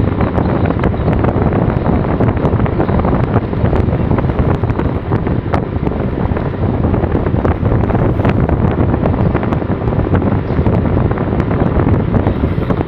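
Steady wind buffeting a phone's microphone on a moving motorcycle, with the motorcycle's running and road noise underneath.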